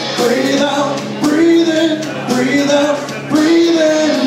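A man singing into a microphone over loud music, holding long notes that bend in pitch.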